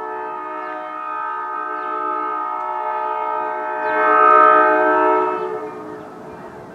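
Diesel locomotive's multi-chime air horn sounding one long blast of about six seconds. It grows louder about four seconds in, then cuts off.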